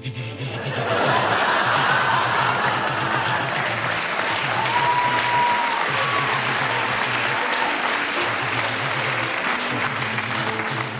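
Applause from an audience, with background music playing underneath.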